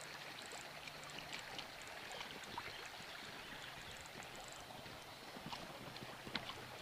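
Shallow stream running over stones, a steady faint rush of water, with a few faint clicks and splashes.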